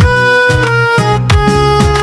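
Instrumental music with a steady beat and a reedy melody line.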